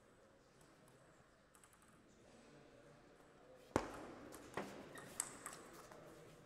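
Table tennis ball being hit back and forth in a rally: sharp clicks of the celluloid/plastic ball off rubber-faced paddles and the table. The first and loudest click comes about four seconds in, followed by quicker clicks roughly every half-second.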